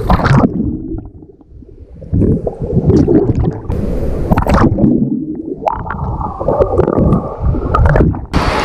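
Lake water sloshing and gurgling around a waterproof action camera held at the surface, muffled whenever the camera dips under the water.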